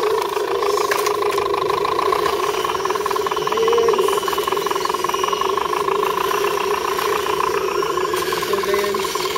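Electric motors and geartrains of RC scale crawler trucks whining steadily at a slow crawl, swelling briefly about four seconds in as a truck climbs out of the rut.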